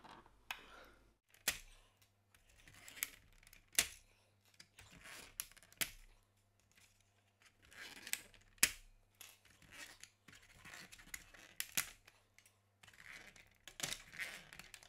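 Gauge needles being worked off their spindles on a GM instrument cluster: a sharp plastic click every few seconds, with scratching and rubbing of fingers on the plastic gauge face between them.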